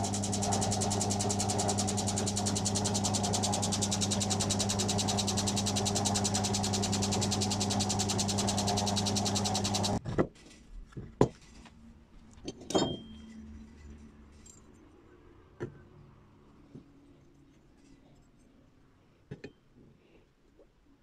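Drill press electric motor running steadily with a low hum, switched off about halfway through and cutting out abruptly. After that there are a few scattered knocks and clicks, like tools and parts being handled.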